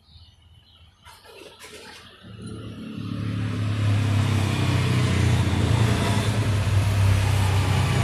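A motor vehicle's engine close by, rising from quiet about two seconds in and then running loud and steady with a deep hum.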